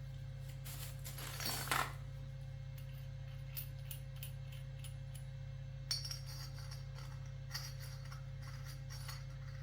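A few faint small clicks and clinks over a steady low hum, with a brief rustle of noise near the two-second mark.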